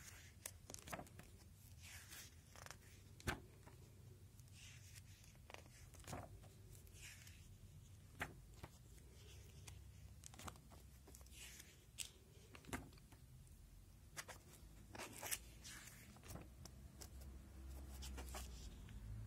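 Plastic sheet-protector pages of a binder being turned one after another: soft crinkling and rustling swishes with scattered light clicks.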